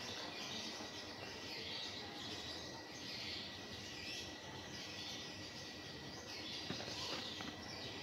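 Steady background ambience with faint repeated chirping and a thin steady high tone, with a couple of light taps near the end as the cardboard box is handled.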